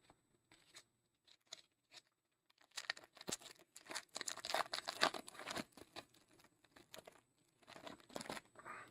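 Plastic wrapping on trading cards being torn open and crinkled, with a few light clicks first, then a longer bout of tearing and crackling and a second shorter one near the end.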